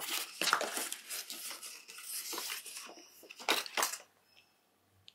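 Paper packaging handled and laid down: rustling and crinkling for about four seconds, with two louder crackles near the end.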